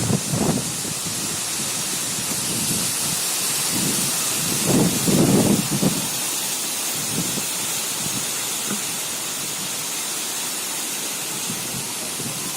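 Nor'wester (Kalbaishakhi) storm: steady hiss of heavy rain, with a low rumble of thunder right at the start and a louder one about five seconds in.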